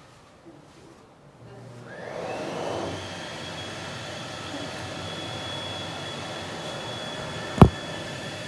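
Electric hand dryer switched on about two seconds in, its whine rising as the motor spins up, then blowing steadily. A single sharp knock near the end.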